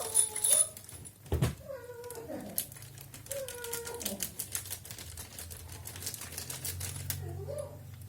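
Three or four short wavering cries, like a cat's meow or a baby's fussing, over a run of fast light clicks and rattles, with one sharper knock about a second and a half in.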